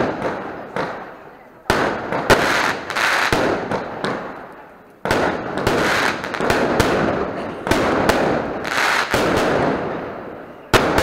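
Firecrackers going off in volleys: each starts with a sudden sharp bang and runs on as dense crackling that fades over a few seconds. A new volley begins about two seconds in, another about five seconds in, and another near the end.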